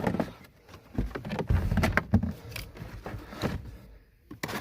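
Unboxing handling noises: a sharp knock at the start, then irregular rustling and knocking as items and packing in a cardboard box are moved about, going quiet briefly before another click near the end.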